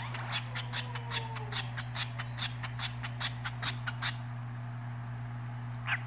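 Cockatiel giving short, evenly repeated chirps, about two and a half a second, breaking off about four seconds in and starting again near the end, over a steady low hum.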